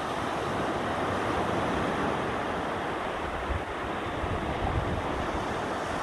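Ocean surf breaking and washing up onto a sandy beach: a steady rushing wash of water with no pause, swelling slightly toward the middle.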